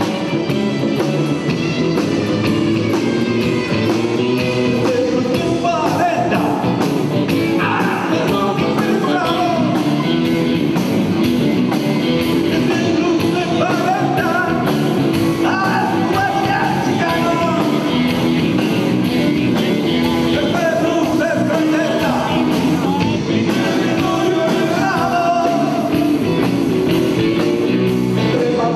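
Rock song with a singing voice over a band with a steady beat.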